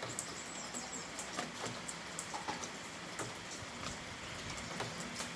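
Rain falling steadily, with individual heavier drops striking close by in irregular sharp ticks over the hiss.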